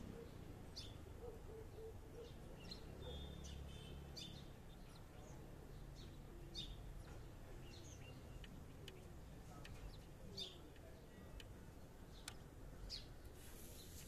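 Faint, scattered bird chirps: short high calls at irregular intervals, roughly one every second or so, over a low steady background rumble.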